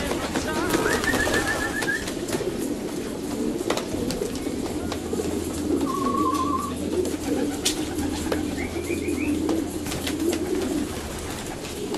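Many racing pigeons cooing together in a crowded crate, a continuous low burbling chorus. A few short high trilled notes come in at about 1 s, 6 s and 9 s, with scattered light clicks.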